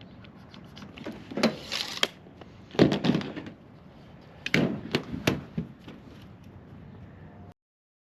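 A handful of sharp knocks and clatters, loudest near the middle, over a faint background hiss; the sound cuts off to dead silence shortly before the end.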